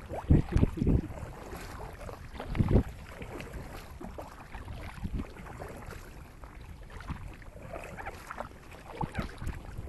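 Kayak paddle strokes dipping and splashing in calm water, with a few loud low thumps near the start and again about two and a half seconds in.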